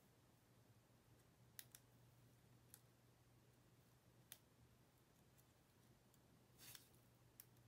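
Near silence: a low steady hum with about six faint, sharp clicks scattered through, and a brief rustle near the end.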